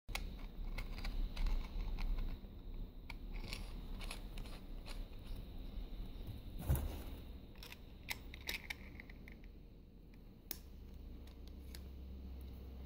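Small clicks and taps of hands handling an e-pipe, twisting the mouthpiece stem against the bowl, with one sharper knock about seven seconds in.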